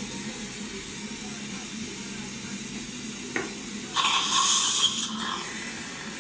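Saline irrigation and surgical suction at a dental implant site: a short click, then about four seconds in a loud hissing, slurping burst of liquid lasting about a second, over a steady low hiss.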